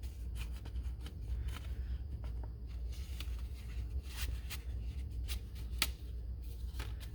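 Paper and packaging being handled: rustling with scattered light clicks and taps, a few sharper ones in the second half, over a steady low hum.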